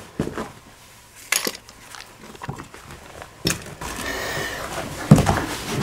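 Footsteps on a rubble-strewn staircase: several sharp knocks and crunches of debris underfoot, with a spell of scraping or rustling about four seconds in. The loudest knock comes about five seconds in.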